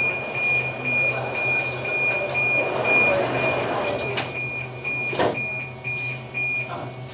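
Door-closing warning beeps of a driverless Budapest metro line 4 train standing at a station: a rapid high beep about twice a second that stops shortly before the end. Under it are a steady low hum and voices, with a single knock about five seconds in.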